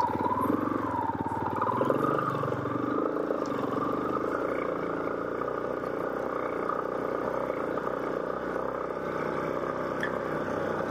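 Motorcycle engine running as the bike is ridden along a dirt track. Its pitch rises and falls with the throttle over the first few seconds, then it runs steadily.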